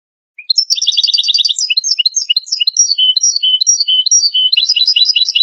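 European goldfinch singing, starting about half a second in: a fast trill of repeated notes, then a run of varied twittering chirps.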